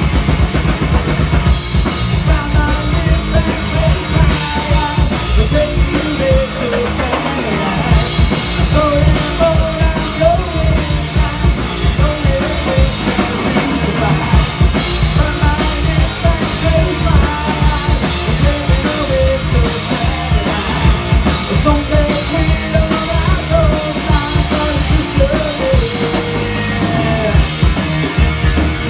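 A live rock band playing loud: a drum kit keeping a steady beat under electric guitar, with a singer's voice on top.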